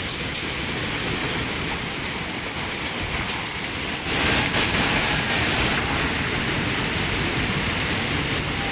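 Steady rushing noise of a landslide debris flow of mud, rock and wreckage. It swells louder about four seconds in.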